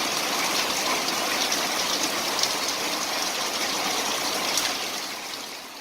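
Heavy rain pouring down steadily, a dense hiss with scattered sharper drop hits, fading out near the end.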